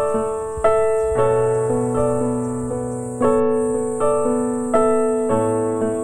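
Background music: a slow, gentle piano melody, notes struck about once a second and left to ring out.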